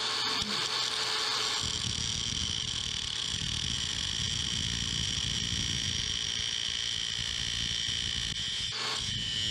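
Angle grinder with an abrasive cut-off wheel running at a steady high whine while cutting slots into a steel bar, throwing sparks. Near the end the sound dips briefly a few times.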